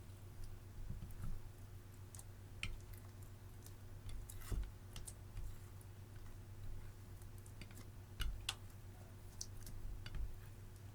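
Clear slime mixed with crushed eyeshadow being pressed and stretched by hand. It gives irregular small clicks and pops, several a second at times, over a faint steady hum.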